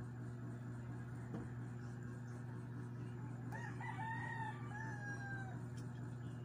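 A rooster crows once, a call of about two seconds in the middle, rising at the start and falling away at the end, over a steady low hum.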